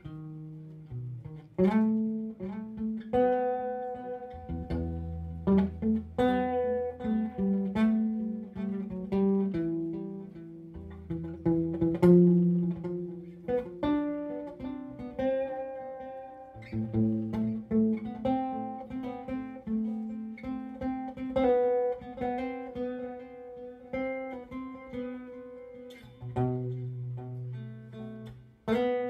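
Instrumental guitar music: plucked melody notes that ring on over lower bass notes, with no singing.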